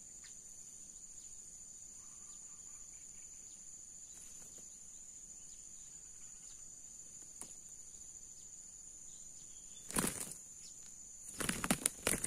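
A steady high insect drone; about ten seconds in, a short burst of wing flapping, then near the end a rapid series of wing beats and strikes as two red junglefowl roosters fight.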